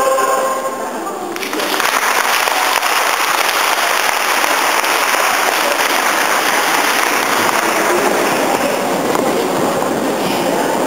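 A choir's final sung chord fades out, and about a second and a half in an audience breaks into steady applause that carries on.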